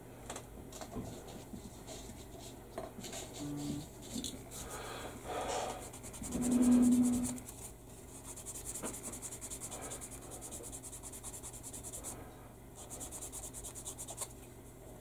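Sanding stick rubbed in quick back-and-forth strokes against a small plastic model part to remove a seam line, in two runs in the second half, after some scattered light scratching. A short low hum a little before the middle is the loudest sound.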